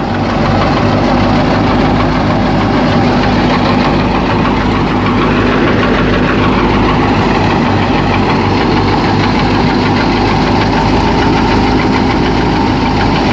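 New Holland Fiat 480 tractor's three-cylinder diesel engine running steadily at about 1700 RPM, driving a thresher.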